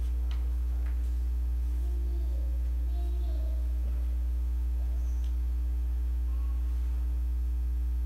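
Steady low electrical hum, with a fainter steady higher tone above it, unchanging throughout; it is mains hum carried in the audio feed.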